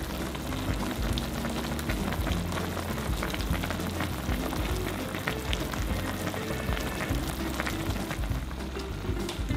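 A clay pot of hot-pot broth with kiritanpo, chicken and vegetables simmering, a steady bubbling crackle, under soft background music.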